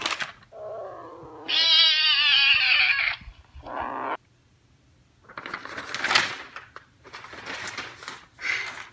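A loud, high-pitched, wavering yowl-like cry lasting about a second and a half, followed by a shorter cry and then a few brief noisy rustles.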